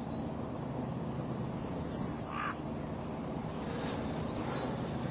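Outdoor ambience of a film soundtrack: a steady low background noise, with a few short bird chirps in the last second or so.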